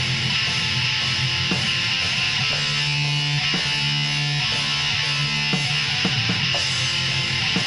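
Lo-fi black metal: dense distorted electric guitar chords changing about once a second over a steady wash of cymbals and hiss, with no vocals.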